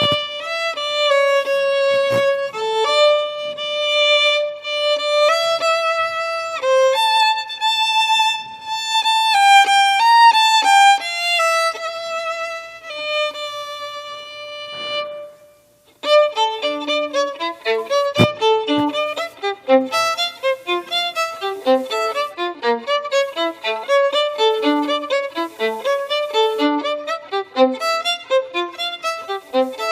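Violin music: a slow melody of long held notes, then, after a brief pause about halfway through, quick running passages.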